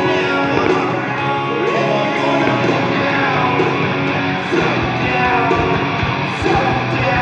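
Rock music with guitar playing loudly, part of the soundtrack accompanying a fireworks display.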